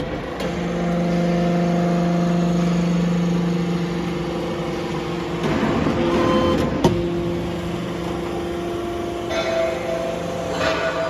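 Hydraulic metal baler running, its pump giving a steady hum that is louder for the first few seconds. About six seconds in, a stretch of harsh grinding noise ends in a sharp bang, and there are more short noisy bursts near the end.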